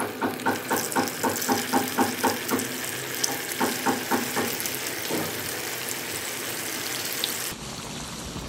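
Battered cauliflower florets deep-frying in hot oil in a pan, sizzling: a quick run of sharp spurts as the pieces go in, settling into steady bubbling sizzle.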